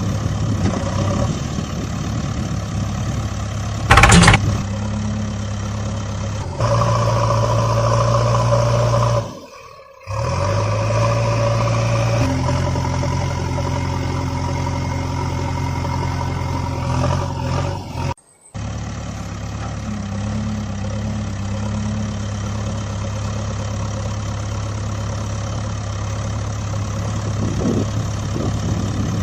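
Engine running at a steady idle, its hum changing abruptly several times as if edited together, with a sharp loud knock about four seconds in and two brief drops to quiet.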